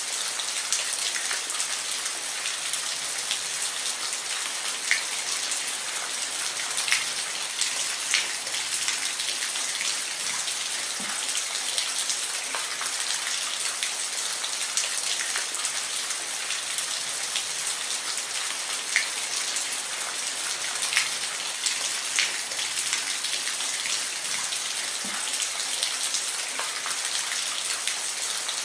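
Steady rain with individual drops ticking sharply on a surface, a dense even hiss.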